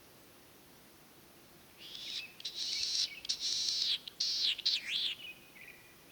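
Latham's snipe giving a loud, harsh, rasping call for about three seconds, starting about two seconds in and ending in quick up-and-down sweeps.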